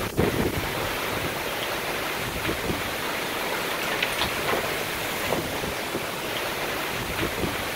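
Heavy hailstorm: a steady rushing hiss of hail and rain driven almost horizontally by strong wind, with scattered sharp ticks of individual hailstones striking nearby surfaces.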